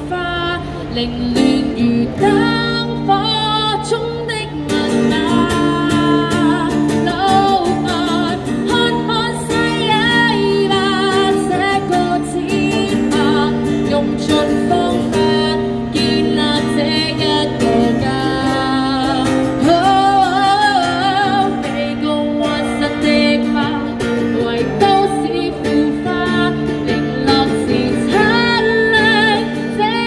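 A woman singing a slow song while accompanying herself on acoustic guitar, with guitar chords held for a few seconds at a time under the voice.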